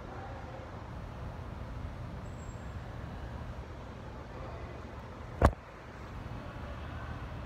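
Steady background rumble and hiss of a large, quiet airport terminal at night. A single sharp knock about five and a half seconds in stands out as the loudest sound.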